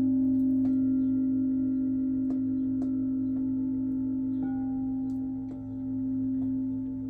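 Singing bowl ringing in a steady low hum that slowly swells and fades, with several higher overtones above it. Light strikes about half a second in and again around four and a half seconds set the higher overtones ringing afresh.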